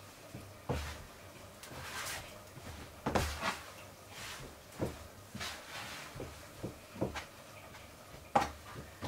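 Soft bread dough being kneaded by hand in flour on a board: irregular thumps and slaps, roughly one every half second to second.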